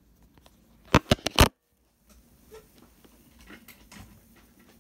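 Four loud, sharp knocks in quick succession about a second in, then the sound cuts out completely for about half a second, followed by faint scattered ticks and rustles.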